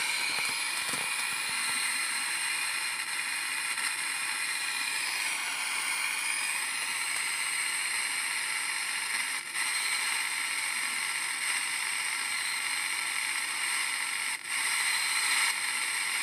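Steady static hiss from an IFR FM/AM-1200 radio service monitor's receiver speaker while the unit is out of lock. The hiss cuts out briefly twice, about nine and fourteen seconds in.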